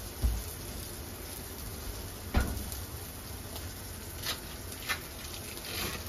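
Handling knocks on a kitchen counter: a soft thump at the start, a louder thump about two and a half seconds in, then a few lighter clicks and a brief rustle, over a steady hiss.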